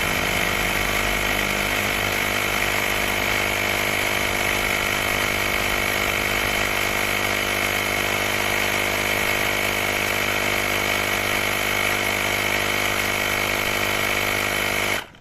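Cordless battery-powered portable air compressor running steadily with a constant motor-and-piston pitch, then stopping abruptly near the end.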